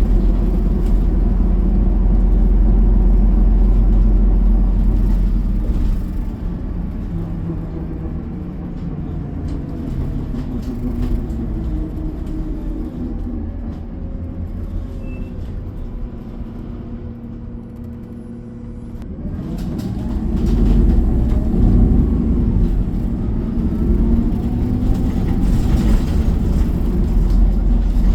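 City bus heard from inside the cabin: the engine and drivetrain run as the bus slows, settle to a quieter steady idle for several seconds, then rise in pitch and grow louder as it pulls away again about two-thirds of the way through.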